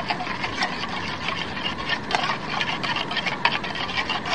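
A spoon stirring and scraping instant mashed potato in a small metal camping pot: irregular light clicks and scrapes, several a second.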